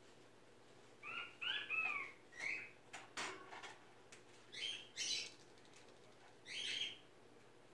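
Umbrella cockatoo calling in short bursts: a run of quick chirps that fall in pitch about a second in, a single click, then three harsher squawks.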